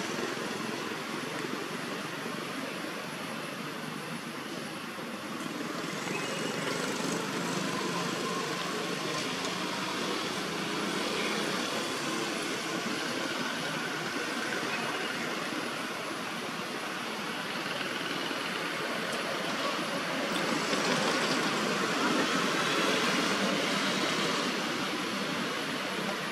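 Steady background road-traffic noise with no distinct single event. It swells a little about a quarter of the way in and again late on, as vehicles pass.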